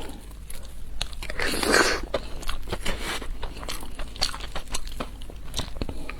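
Close-miked eating: chewing and biting food with many small wet clicks, and one louder, longer stretch of eating noise about a second and a half in.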